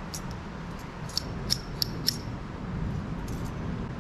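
About five sharp metallic clicks and ticks in the first half, from hand tools and parts being worked on a Cat D6B's diesel fuel injection pump, over a steady low hum.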